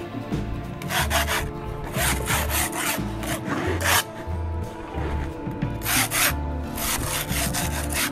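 A tool scraping in several rough, irregular strokes, over background music with a steady beat.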